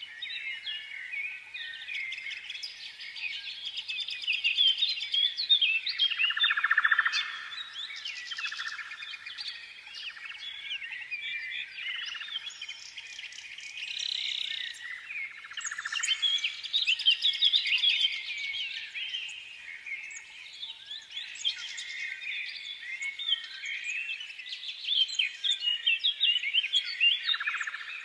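A flock of sparrows chirping and twittering all at once in a dense, continuous chatter of many short overlapping calls, a little louder in places.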